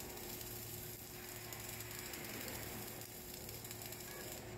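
Flux-cored arc welding on a vertical butt joint: the arc burns with a steady crackle over a low hum, and the arc cuts off near the end.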